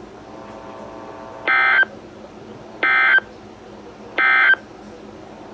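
Three short, identical bursts of NOAA Weather Radio SAME digital data tones, about a second and a half apart: the end-of-message code that closes the severe thunderstorm warning broadcast. A faint steady hum from the broadcast carries on between the bursts.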